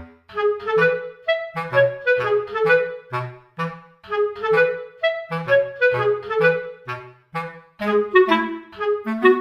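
Background music: a melody of short notes over a bass line, at a steady pace.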